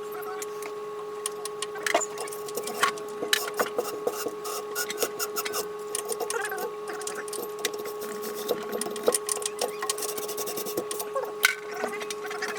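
A steady hum with many scattered light clicks and knocks, typical of hand work on plumbing parts.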